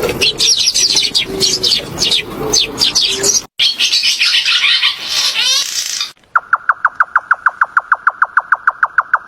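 Birds chirping and twittering densely, with an abrupt cut about three and a half seconds in to another burst of chirps. About six seconds in it switches to a bird's fast, even run of short identical notes, about seven a second.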